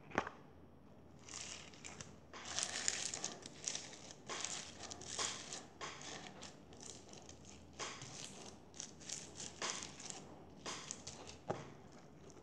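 Crunchy foam-bead slime being pressed and squeezed by hand, giving a quick series of crackling, crunching bursts as the beads pop and rub together, with a sharp click at the very start.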